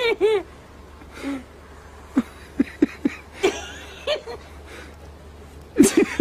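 A person laughing: a few arching laughs at the start, scattered short chuckles and snickers through the middle, and a louder burst of laughter near the end.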